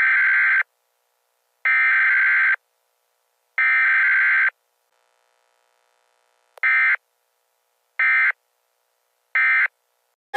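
Electronic alert beeping from a weather alert radio: three long beeps, then after a pause three short, quick beeps, all at the same high pitch.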